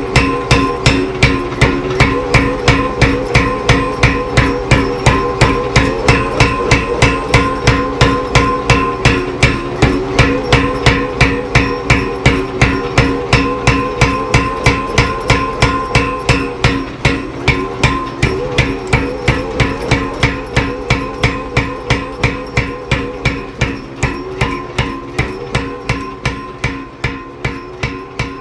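70 lb Clay Spencer tire hammer pounding steadily at about three to four blows a second, each strike leaving a metallic ring between blows. The blows grow gradually quieter over the last several seconds.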